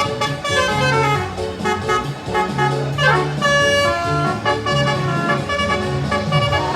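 Basuri telolet musical horn on a bus playing a tune: a run of held, horn-like notes that change pitch in steps, with a quick slide in pitch about three seconds in.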